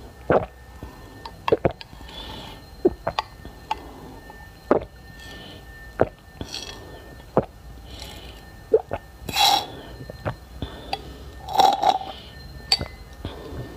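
Close-miked eating of ice cream: a scatter of sharp wet mouth clicks and smacks, with two longer, louder bursts of mouth noise about two-thirds of the way through and again shortly after.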